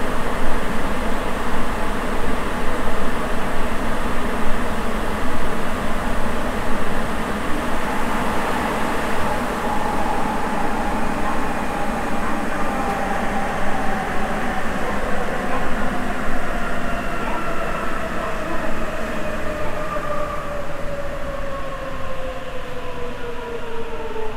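Sapporo Municipal Subway 9000-series rubber-tyred train running in the tunnel, a dense steady rumble. From about ten seconds in, the motor whine falls slowly in pitch as the train slows for the next station.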